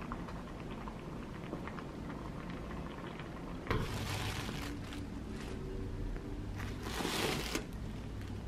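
Tissue paper rustling and crinkling as a parcel is unwrapped by hand, in two bursts about four and seven seconds in, over a low steady room hum.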